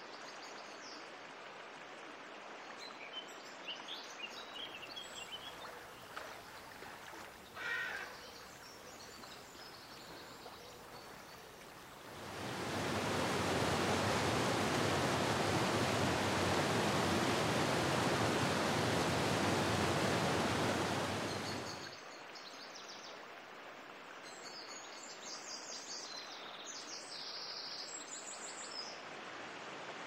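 Shallow creek water running steadily, with scattered small bird chirps. About twelve seconds in, a waterfall pouring into a pool takes over, much louder, for about ten seconds. Then it drops back to quieter running water with more bird chirps.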